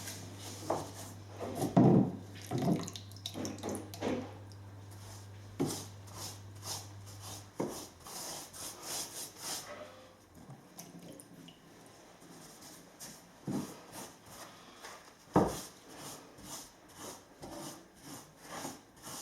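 Wooden floorboards being lifted and handled: a few sharp wooden knocks and thuds, the loudest about two seconds in and again near the end, with wood rubbing and scraping between them. A low steady hum in the background stops about seven or eight seconds in.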